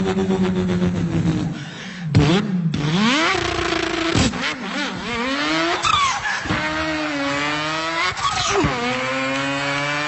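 A man imitating a racing car's engine with his voice. He holds a steady drone at first, then revs up in repeated rising climbs that drop suddenly and climb again about every two seconds, like upshifts through the gears.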